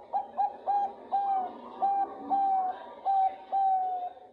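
Female zebra dove of the Thai 'perkutut bangkok' strain cooing to call a male: a few short, quick notes and then five longer, evenly spaced notes, each dipping slightly in pitch at its end.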